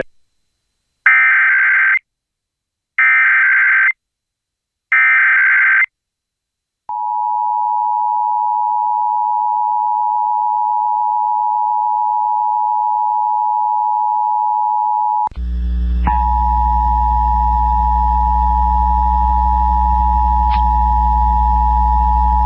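Emergency Alert System Required Monthly Test broadcast over AM radio: three one-second bursts of the SAME digital header, a pause, then the steady two-tone EAS attention signal (853 and 960 Hz). A low hum comes in under the attention tone about two-thirds of the way through.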